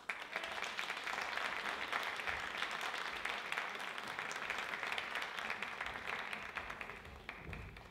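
Audience applause, a dense patter of many hands clapping. It breaks out suddenly and fades away near the end.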